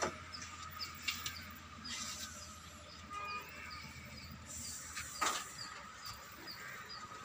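Quiet outdoor background: a faint high chirp repeating about twice a second, with a few light clicks and knocks.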